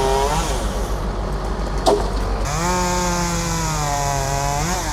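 Two-stroke chainsaw running at high revs: it eases off in the first half second, then is held at a steady high speed from about halfway, and revs up sharply near the end. A short sharp knock about two seconds in.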